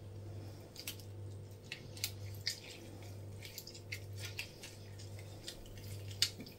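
A lemon half speared on a fork being squeezed and twisted over raw chicken breasts in a plastic tub: scattered small clicks, squelches and drips of juice. A steady low hum runs underneath.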